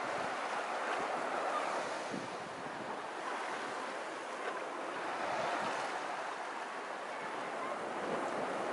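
Small sea waves breaking and washing up a sandy beach: a steady hiss of surf that swells and eases twice.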